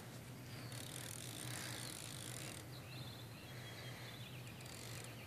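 Fly reel's click-and-pawl drag ratcheting in quick runs of ticks as the line is worked on a hooked tarpon, faint against a steady low hum.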